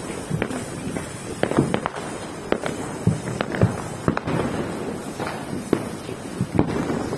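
Vanitha green pyro torch fireworks burning with a steady hiss, with irregular sharp crackling pops, a few each second.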